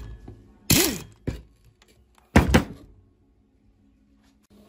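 Electric impact wrench driving a gear puller's centre screw in three short bursts, each winding down as it stops, to pull the rusted flywheel off a small four-stroke engine's crankshaft.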